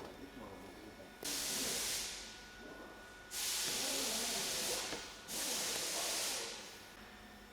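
Aerosol brake cleaner sprayed in three long hissing bursts, each about a second and a half, degreasing the brake caliper bracket and guide-pin parts.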